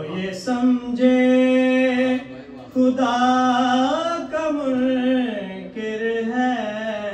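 A man's solo voice chanting a devotional recitation in long, held, wavering notes, unaccompanied, with a short breath pause about two and a half seconds in.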